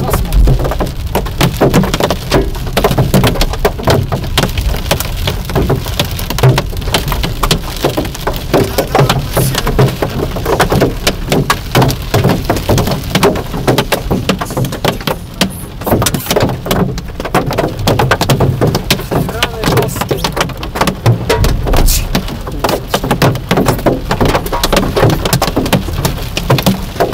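Heavy storm rain pelting a car's roof and windshield, heard from inside the car as a loud, dense drumming of countless drop impacts.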